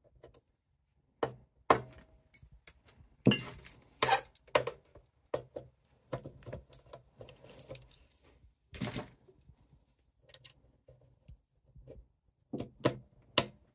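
Small screwdriver working the screws on a Seagate ST-225 hard drive's metal casing: irregular clicks, taps and short scrapes of metal on metal, a few louder knocks among them.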